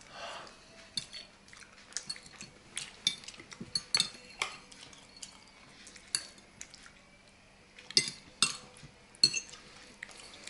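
Metal forks clinking and scraping against a plate and plastic bowls while eating, in scattered irregular clicks, with three louder clinks near the end.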